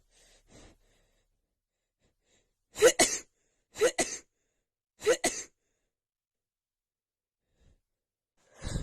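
A woman with a stuffy head cold sneezing three times in a row, about a second apart, each sneeze short and sharp. Faint breaths come before them.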